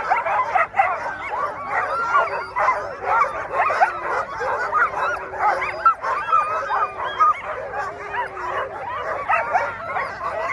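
A team of harnessed sled dogs making a constant, overlapping chorus of high yips, whines and barks with a few drawn-out whines mixed in. It is the excited clamour of sled dogs hooked to the gangline and eager to run.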